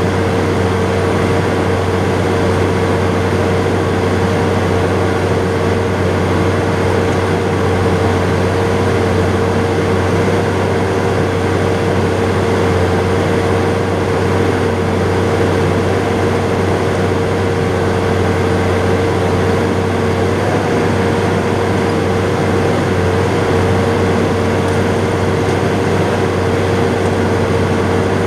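John Deere 7800 tractor's six-cylinder diesel engine running steadily, heard from inside the cab, a low drone with a constant higher tone over it.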